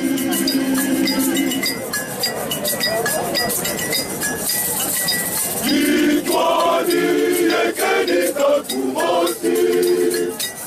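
Male choir singing in parts, with a hand rattle shaken and a metallic clink keeping time about twice a second. About two seconds in, a long held chord breaks off. Near six seconds the full choir comes in again.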